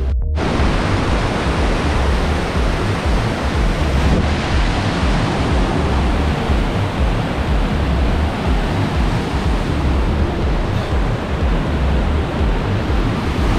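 Steady wind buffeting the microphone over a constant rush of water, with heavy low rumble throughout.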